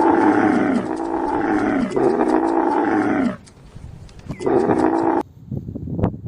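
Camel bellowing: two long calls back to back, each dropping in pitch at the end, then a shorter call about four and a half seconds in.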